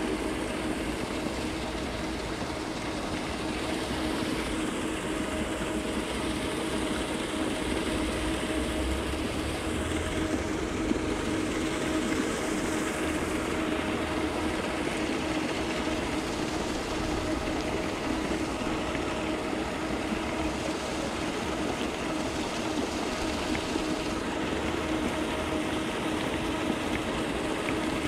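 Steady machine hum over an even rushing noise, unchanging throughout.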